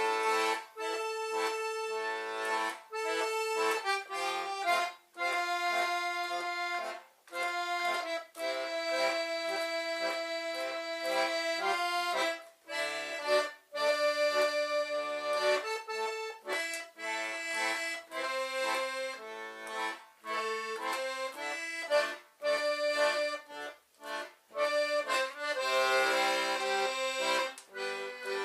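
Concertina playing a slow melody with chords, notes held and joined in phrases broken by short breaths of the bellows.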